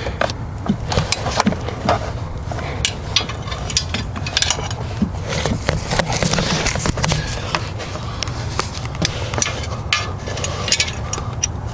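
Irregular clicks and knocks of a hand wrench working against metal while trying to reach the exhaust header bolts, over a steady low hum.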